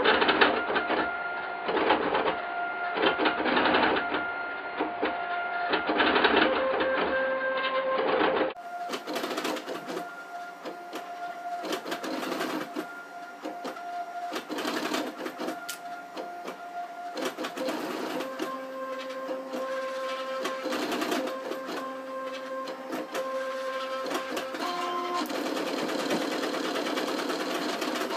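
Trinity Labs Aluminatus 3D printer at work, its stepper motors driving lead screws and whining in steady tones that jump in pitch with each change of the print head's direction and speed. About eight and a half seconds in, the sound turns brighter and loses its low end.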